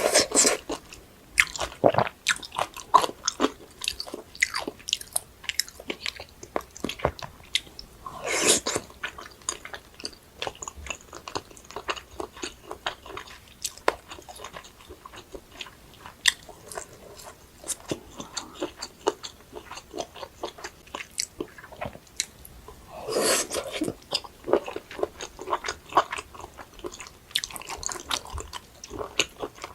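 Close-miked eating: steady chewing and biting with many small wet, crisp clicks, and two louder, longer bursts about 8 and 23 seconds in.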